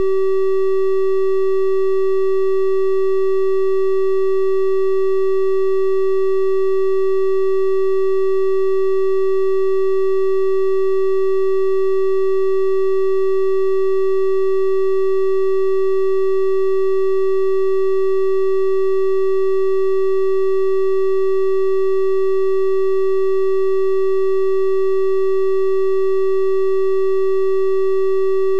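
Steady synthesized 384 Hz triangle-wave tone, one unbroken pitch with faint overtones above it.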